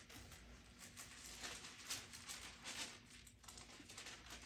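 Faint, irregular rustling and soft flicks of thin Bible pages being turned to look up a verse.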